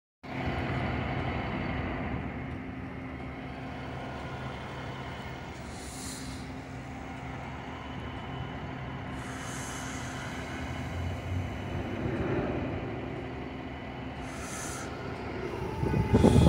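Flatbed tow truck's engine running steadily with a low, even hum while the tilted bed is worked, broken three times by short hisses. Louder knocks come in at the very end.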